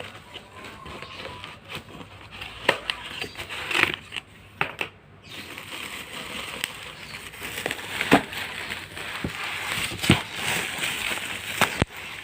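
Packaging crackling and rustling as it is handled and torn open, with irregular sharp clicks and knocks.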